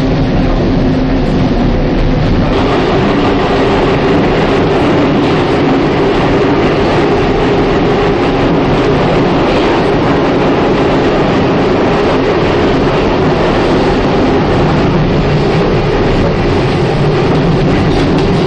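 Steady running noise inside a Hamburg S-Bahn class 471 electric multiple unit under way: wheels running on the rails with a low hum that shifts higher about two and a half seconds in.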